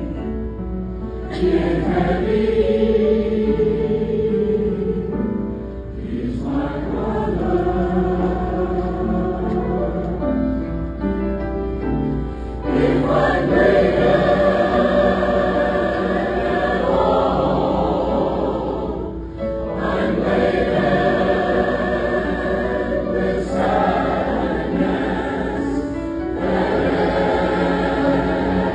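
A choir of men and women singing together, in long phrases separated by brief pauses.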